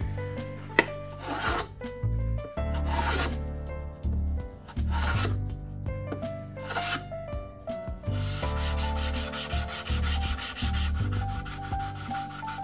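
A hand plane takes about four short swishing strokes along the edge of a plywood board. From about two-thirds of the way in, sandpaper rubs quickly back and forth on the edge. Background music plays throughout.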